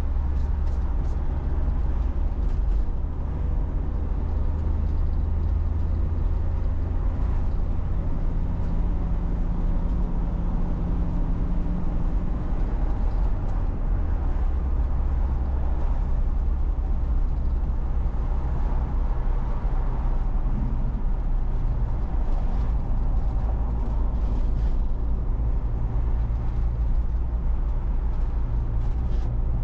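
Steady low drone of a vehicle's engine and tyres heard from inside the cab while driving on the open road. The engine note shifts in pitch a few times as the speed changes.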